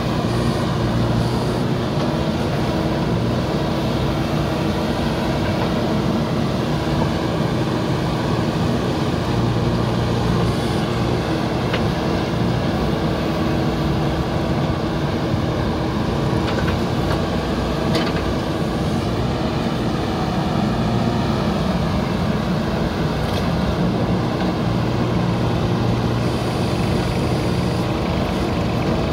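JCB 3DX backhoe loader's diesel engine running steadily under load while the backhoe arm digs. A few faint knocks come through in the middle.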